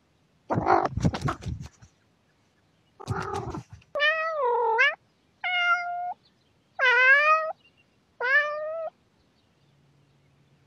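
A domestic cat meowing four times, each meow about half a second to a second long, after two short bursts of rustling.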